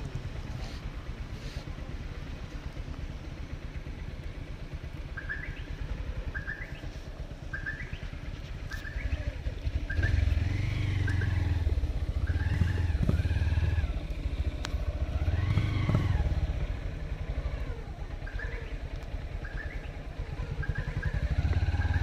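Motorcycle engine running at low speed, revving up about ten seconds in, again around sixteen seconds, and near the end. A short, high, rising chirp repeats about once a second in the background from about five seconds in.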